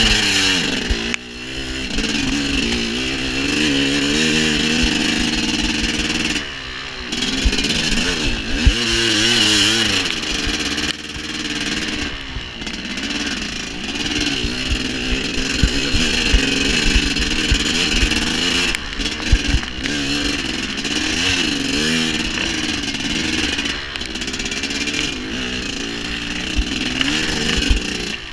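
Dirt bike engine being ridden hard, its pitch rising and falling with the throttle and dropping off briefly several times as the rider lets off. Scattered low thumps sound under the engine.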